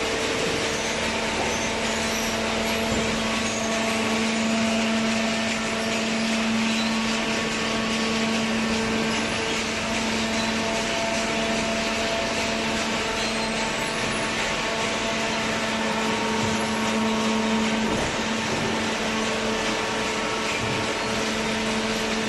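Hydraulic cardboard baler's electric motor and pump running, a steady hum with a constant whine over machine noise.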